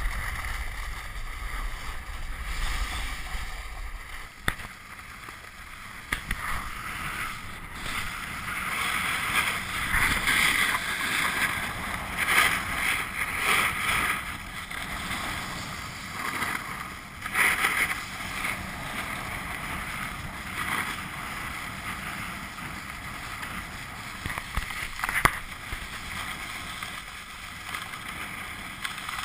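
Snowboard sliding down a groomed slope, heard through a helmet-mounted camera: a continuous scraping hiss of the board on snow mixed with wind on the microphone, swelling louder several times, with a sharp knock near the end.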